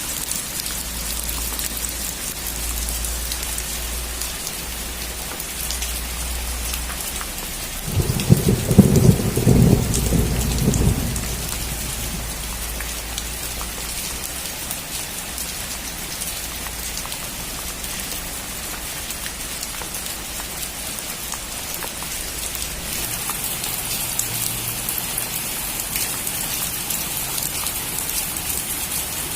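Steady rain falling on a roof, with a clap of thunder rumbling for about three seconds near the middle.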